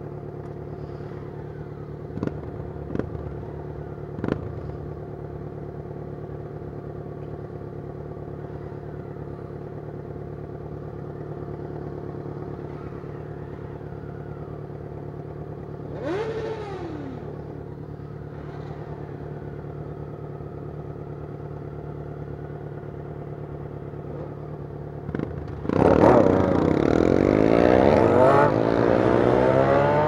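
Motorcycle engine idling steadily while stopped, with a few sharp clicks early on and a short falling tone about sixteen seconds in. Near the end it revs up and the pitch climbs as the bike accelerates away from a standstill.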